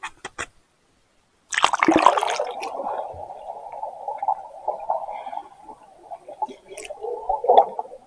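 A sudden splash about a second and a half in, then muffled, gurgling rushing water.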